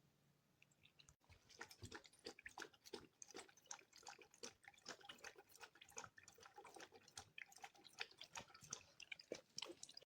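A pet lapping water from a stainless steel dog water fountain, with quick wet laps several times a second, starting about a second in.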